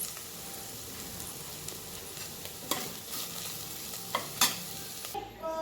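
Vegetables sizzling as they fry in a pan, with a few sharp knocks of a utensil against the pan as the food is stirred. The sizzle cuts off suddenly near the end.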